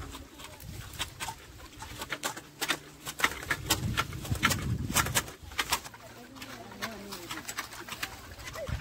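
Tea-harvesting shears snipping at tea bushes: a quick, irregular run of sharp clicks, several a second, with a low rumble under the first half.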